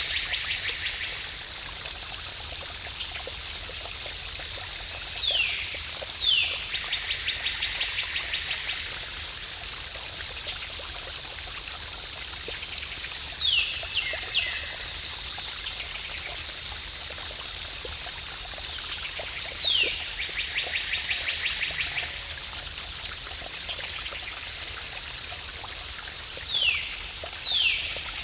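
Steady rush of a waterfall, with a bird calling every six or seven seconds: one or two quick downward-sliding whistles, then a fast trill. A thin, steady high tone runs under it.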